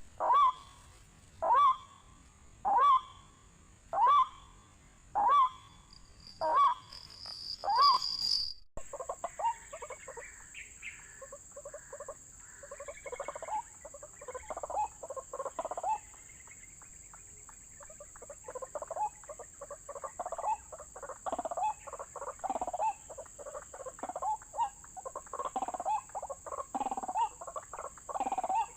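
White-breasted waterhen calls: a regular series of loud calls, about one a second, then after a sudden cut a denser, irregular run of overlapping calls. A steady high-pitched whine sounds above the later calls.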